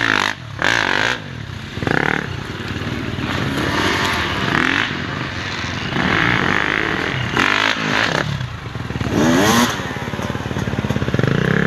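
Dirt bike engine revving up and down as it is ridden off-road, the revs dropping briefly twice in the first two seconds as the throttle is eased off, and climbing steeply about three-quarters of the way through.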